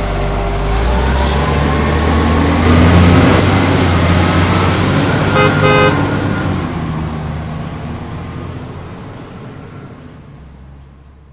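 A motor vehicle passing by, getting louder over the first few seconds and then fading steadily away, with a short double horn toot about five and a half seconds in.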